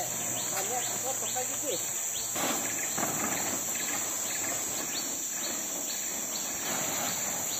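Steady chorus of forest insects, crickets or cicadas, keeping up a continuous high shrill. Over it runs a short rising chirp, repeated evenly about twice a second.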